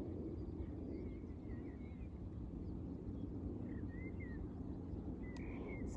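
Outdoor ambience: a steady low rumble with a faint hum, and a few faint, quick bird chirps about a second in, near four seconds and near the end.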